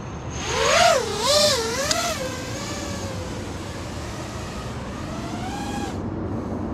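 FPV freestyle quadcopter's brushless motors and propellers whining, the pitch swinging quickly up and down with the throttle for the first few seconds, then settling into a steadier whine that rises slowly. The quad is on lighter Azure Power Johnny FPV props during a tuning test flight.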